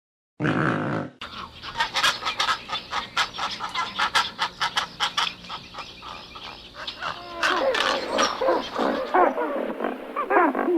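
Pelican calls: a short hoarse burst, then a rapid run of sharp clicks for several seconds, then short rising-and-falling calls near the end.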